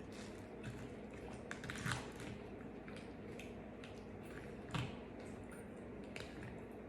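Close-miked chewing and wet mouth sounds of someone eating fast-food pasta, with scattered soft clicks and two louder smacks, about two seconds in and again near five seconds.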